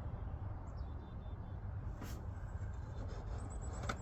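Steady low background rumble, with faint short high chirps about a second in and two light clicks later.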